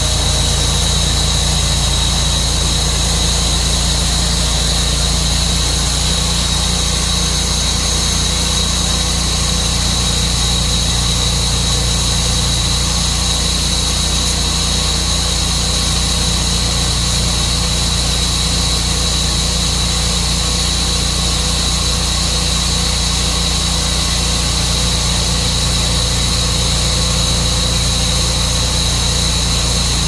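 Tru-Cut sawmill running steadily: a constant engine hum under a steady high-pitched whine.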